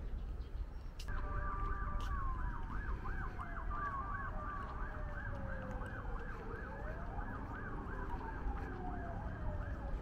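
An emergency vehicle's siren starting about a second in: a fast warbling yelp, about three rises a second, together with a slower wail that falls, rises and falls again. A low steady rumble lies underneath.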